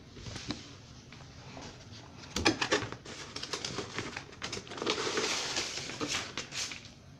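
A few sharp clicks and knocks about two and a half seconds in, then several seconds of rustling and crinkling with scattered taps: a toy's plastic packaging being handled.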